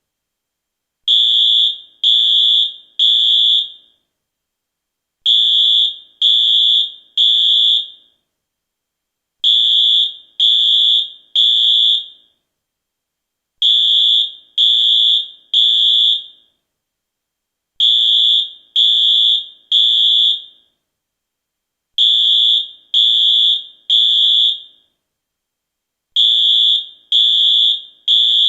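US fire alarm sounding the temporal-3 evacuation pattern: high-pitched beeps in groups of three about a second apart, each group followed by a short pause, repeating about every four seconds.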